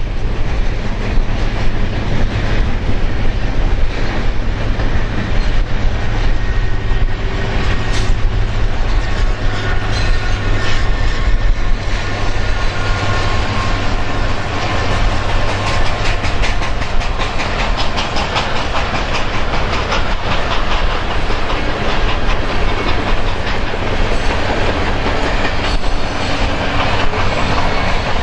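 Long freight train of covered grain hoppers rolling past at close range, steady wheel noise and clickety-clack over the rail joints, with a mid-train EMD SD70M-2 diesel locomotive passing about halfway through. Heavy gusty wind buffets the microphone, adding a deep rumble under the train.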